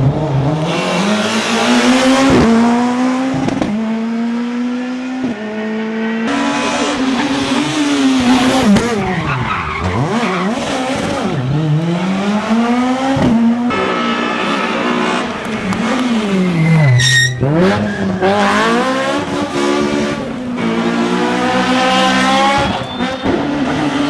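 Rally car engines at full throttle as the cars pass, revving up and dropping sharply again and again as they shift gears, in short stretches that switch abruptly several times. There is one sharp crack about two-thirds of the way through.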